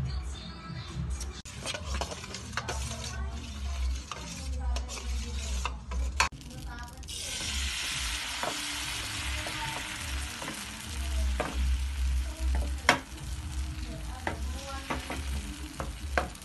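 Small golden bits frying in a pan and being stirred, with scraping and clicks. About seven seconds in, egg batter for the wrapper goes into a hot nonstick pan and a loud sizzle starts suddenly, slowly thinning out as the wrapper sets; a single sharp clack a few seconds later.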